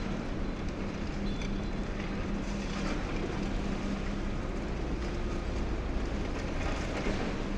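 High-reach demolition excavator running steadily, a constant engine hum over a low rumble as its crusher jaws work at the top of a concrete tower block.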